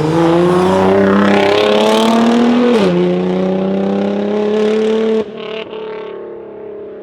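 Mercedes-AMG GLE43's twin-turbo V6 through an Armytrix exhaust accelerating hard. The engine note climbs, dips with an upshift nearly three seconds in, climbs again, then drops off sharply as the throttle is lifted about five seconds in.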